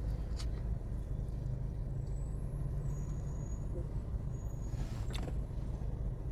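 A steady low rumble of a motor vehicle, with two short clicks, one about half a second in and one near the end.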